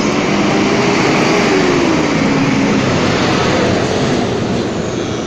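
A large bus passing close by: engine and tyre noise swelling to a peak about a second and a half in, then slowly fading as it goes away.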